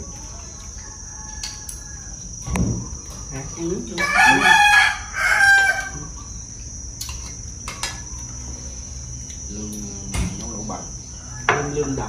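A rooster crowing once, about four seconds in, in two drawn-out parts, over a steady high chirring of insects.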